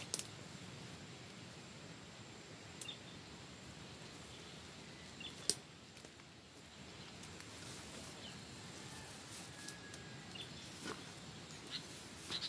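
A person moving and handling gear in dry grass and brush: scattered small clicks and rustles over a steady faint outdoor background, with one sharp click about five and a half seconds in.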